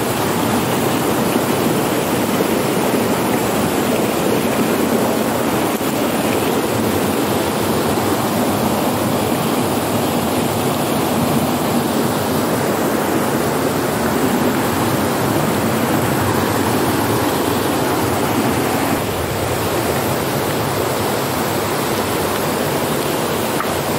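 Steady rush of flowing stream water, a continuous even noise with no breaks.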